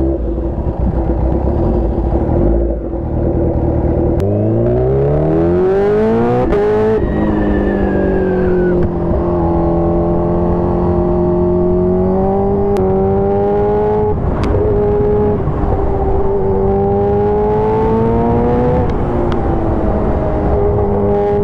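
Sport motorcycle engine on a highway run: the revs climb steeply from about four seconds in, drop at a gear change around seven seconds, then hold at a steady cruise, easing up and down a little.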